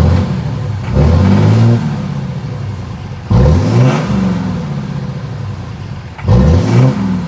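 A 6.7 L Cummins inline-six turbo diesel in a 2013 Ram 2500 is free-revved in park, with four quick throttle blips rising and falling over a steady idle. No knocking comes through: the knock appears only under load or with the AC on.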